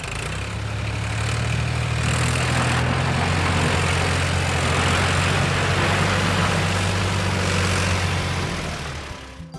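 Heavy crane engine running steadily: a deep low hum with a rushing noise over it, swelling in at the start and fading out near the end.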